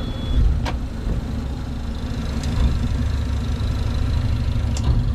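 Sailing catamaran's engine running at idle: a steady low rumble, with a sharp click less than a second in and another near the end.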